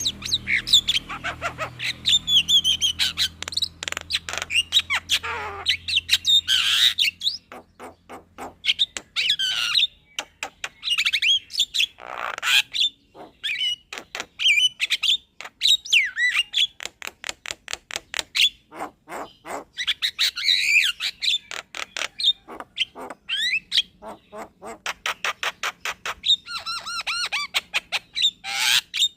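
Javan myna singing a long, rambling song: rapid strings of clicks and rattles mixed with harsh squawks and gliding whistles, broken by brief pauses.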